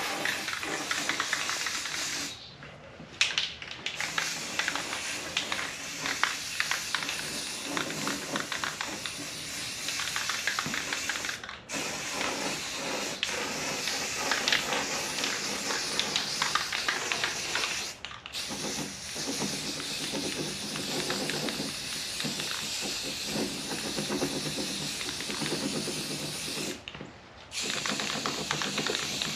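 Aerosol can of rust-preventive spray paint hissing steadily in long bursts, with the nozzle let go for a moment about three seconds in, and again near 11, 18 and 27 seconds.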